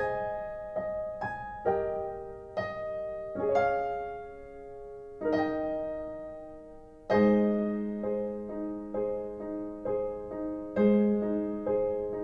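Recorded solo piano introduction played through a hi-fi amplifier and speakers: slow, gentle chords struck and left to ring and fade. About seven seconds in a low note enters and the chords come more often.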